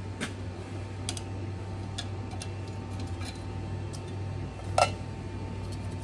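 Scattered light metallic clicks from a removed microwave magnetron being handled, with a sharper click about five seconds in, over a steady low hum.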